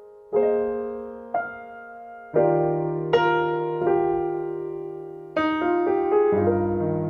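Slow, gentle solo piano music: soft chords struck about once a second, each left to ring and fade before the next.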